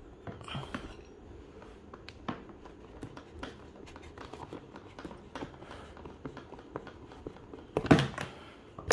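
Phillips screwdriver poking and scraping through a bolt hole in a hard plastic child bike seat to punch the hole open, with scattered small clicks and scrapes of plastic being handled. A louder knock comes about eight seconds in as the screwdriver is pulled out.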